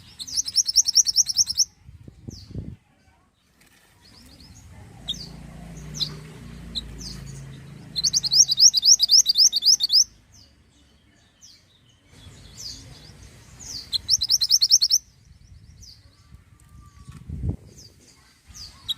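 Mantenan (minivet) song: three rapid runs of quick, evenly repeated high chirps, each lasting a second and a half to two seconds, with single sharp chirps in between.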